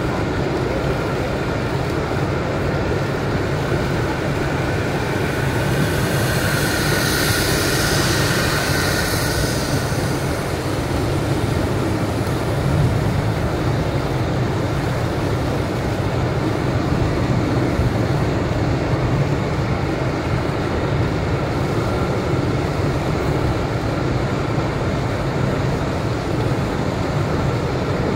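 Steady road noise heard from inside a car at highway speed on a rain-soaked road: engine and tyre drone with a wet hiss. The hiss swells louder for a few seconds about six seconds in.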